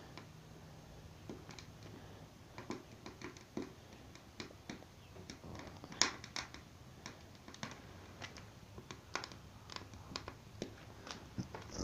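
Firewood burning inside a popcorn-tin wood stove, crackling with faint, irregular sharp pops; the loudest pop comes about six seconds in.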